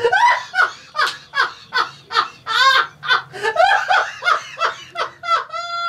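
Hearty laughter in a steady run of short bursts, about three a second, ending in one longer drawn-out laugh near the end.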